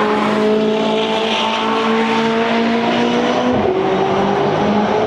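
McLaren 570S twin-turbo V8 running at high revs under load. The revs hold steady, drop suddenly about three and a half seconds in, then climb again.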